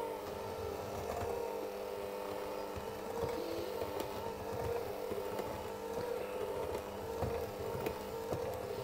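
Electric mixer motor running steadily on low speed, blending flour and chopped pistachios into a creamed butter mixture for biscuit dough, with faint small ticks over its steady hum.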